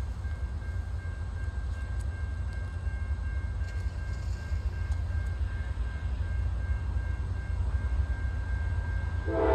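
Approaching freight train's diesel locomotive: a low rumble that grows slowly louder as it nears. Just before the end the locomotive's air horn starts sounding, loud and sudden.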